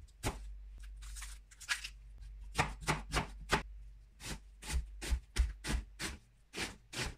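Chef's knife dicing an onion on a plastic cutting board: a series of sharp knife taps against the board, widely spaced at first, then a steady run of about three a second.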